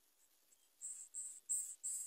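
An insect chirping in a steady pulsed rhythm, high-pitched, about three even pulses a second, starting about a second in.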